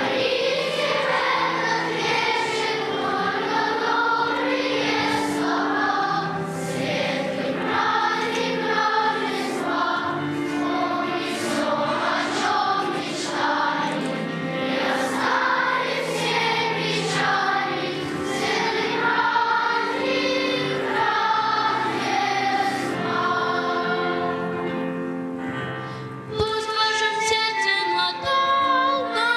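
A choir singing a song with musical accompaniment. About three seconds before the end, the music breaks off and switches abruptly to a different, brighter sung passage.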